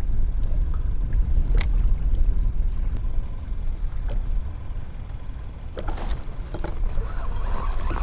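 Wind buffeting the microphone with a steady low rumble, over small waves lapping against a kayak hull. A couple of sharp clicks and knocks from gear on the boat, with more scattered knocking near the end.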